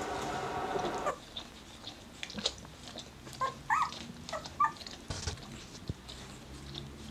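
Ten-day-old border collie puppies giving short, high squeaks and whimpers while the mother dog noses at them, with soft shuffling and licking. A steady hum stops about a second in.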